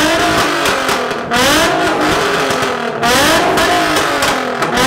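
A car engine revved hard again and again, each rev climbing in pitch and dropping back, about one every one and a half seconds.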